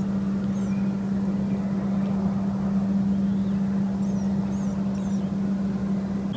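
An engine running at a steady speed, a constant low hum, with a few faint high bird chirps.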